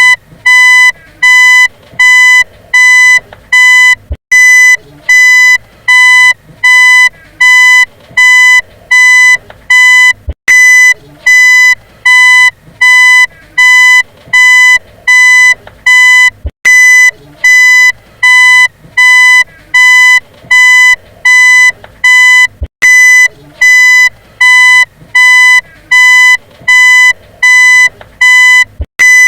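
Vehicle reversing beeper sounding a steady train of identical high-pitched beeps, a little more than one a second. A brief click interrupts it about every six seconds.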